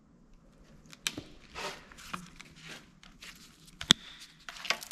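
Rustling and crackling of a Renault J7R engine's wiring harness and its plastic loom being handled and pulled free, with scattered clicks and a sharp click about four seconds in.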